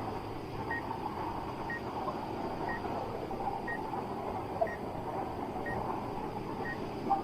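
Steady rushing of a waterfall, with a faint short high pip repeating about once a second.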